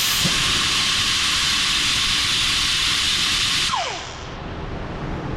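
Steady hiss of a pressurized jet (spray or compressed air) aimed at the Subaru Forester's front brake assembly during cleanup, lasting about three and a half seconds and then cutting off, with a short falling tone as it stops.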